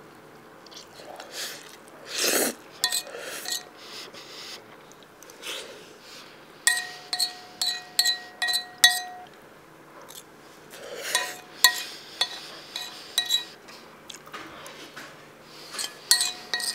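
Eating utensils clinking against ringing dishware, in quick runs of taps about three or four a second with pauses between, and one louder scrape about two seconds in.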